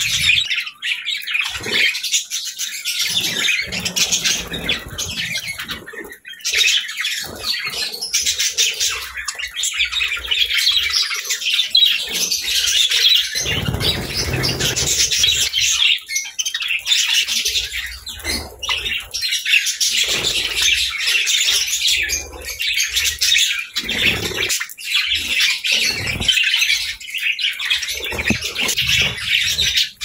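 A flock of budgerigars chirping, warbling and squawking together in a dense, continuous chatter while they feed.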